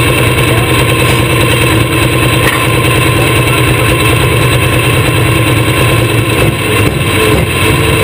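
Case IH Pro Stock pulling tractor's diesel engine running loud and steady at idle, heard from the driver's cockpit.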